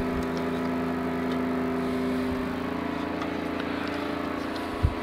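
A steady mechanical hum holding several fixed pitches, with one short thump near the end.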